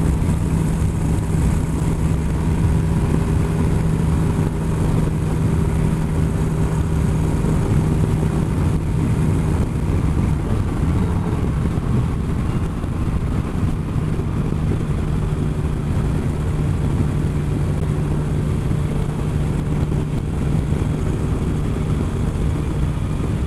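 Motorcycle engine running at a steady cruise, a constant hum, with wind and road noise, heard from on board the bike.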